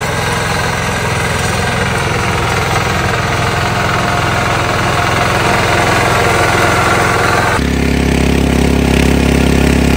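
Small engine of a walk-behind power weeder with a reaper attachment running as it cuts standing wheat. About seven and a half seconds in it switches abruptly to a power tiller's engine driving its rotary tiller through soil, a steadier, lower-pitched running sound.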